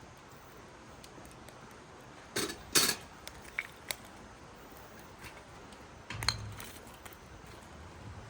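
Metal cookware and utensils clinking and knocking: two loud clinks in quick succession about two and a half seconds in, a couple of lighter ticks, then a clink with a dull knock about six seconds in.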